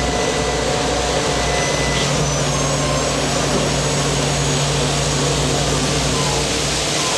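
Steady, loud machinery din of a purse seiner's diesel engines and hydraulic deck gear while the brail of sardines is worked and hoisted by crane; a deeper steady hum joins about two seconds in and briefly drops away near the end.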